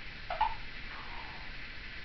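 Timneh African grey parrot giving a short call about a third of a second in, sweeping up in pitch and then holding a brief note, with a fainter note a little later.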